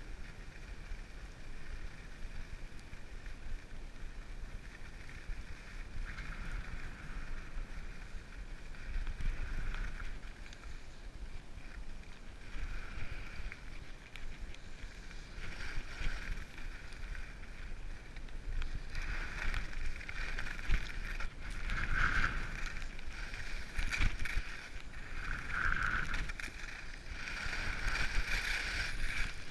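Skis scraping and hissing over packed snow during a downhill run, swelling with each turn about every three seconds and louder in the second half, with wind rumbling on the camera microphone.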